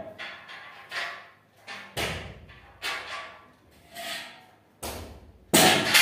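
An irregular series of knocks and bangs, roughly one a second, each ringing out briefly; the loudest comes near the end.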